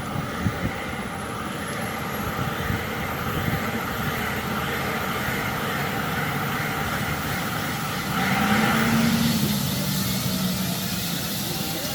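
Bell 429 twin-turbine helicopter running on the ground: a steady drone with a thin high whine that rises slowly in pitch. About eight seconds in there is a brief louder tone.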